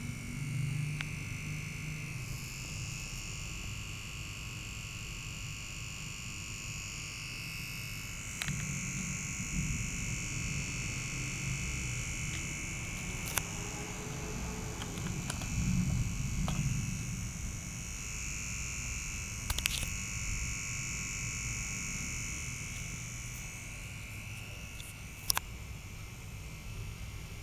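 Steady chorus of animal calls at two high pitches, with a low hum beneath and a few sharp clicks.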